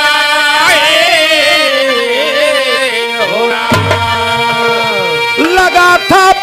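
Bhojpuri biraha folk music: a long sliding, wavering melody held over a steady drone, with hand-drum strokes coming in near the end.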